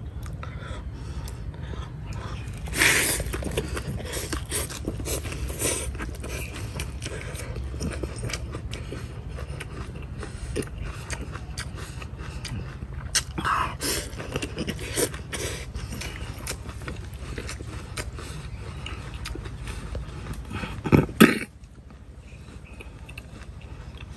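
A person eating rice vermicelli and chilies from a big bowl: chewing, mouth smacks and slurps, with chopsticks and a spoon clicking and scraping against the bowl. Louder slurps come about three seconds in and again around thirteen seconds in, and the loudest, two in quick succession, near the end.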